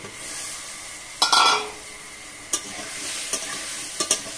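Cut potato and eggplant sizzling as they hit hot spiced oil in a metal kadai, stirred with a metal spatula that clicks and scrapes against the pan. There is a loud metal clank with a brief ring about a second in.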